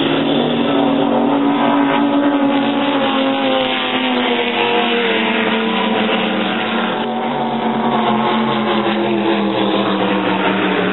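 Offshore racing powerboat engines droning steadily as the boats run past, the pitch sagging slowly and then climbing again near the end.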